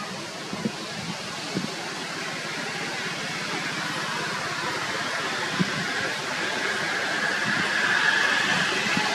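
Steady outdoor background noise that grows slowly louder, with a higher hum joining about six seconds in and a few soft low knocks early on.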